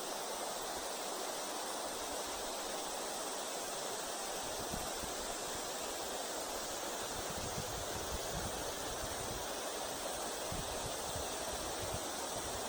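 Steady rush of river water flowing over a shallow stony riverbed, with scattered low bumps on the microphone from about four seconds in.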